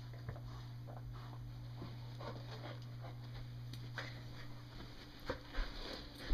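Two golden retrievers scuffling over a tennis ball Velcroed to cloth shorts: faint rustling and mouthing noises with a few soft knocks, over a steady low hum that fades about five seconds in.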